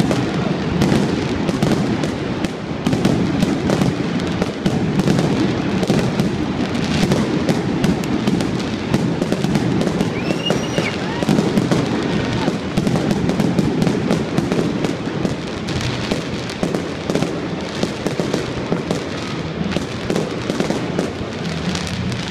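Fireworks display going off: a dense, continuous crackle of many rapid pops from glittering crackle-star bursts.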